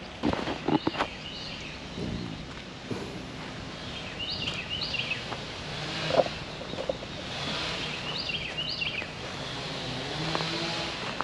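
Outdoor ambience: a few knocks and footsteps in the first second, then a bird singing short high chirping phrases twice, over a steady low hum.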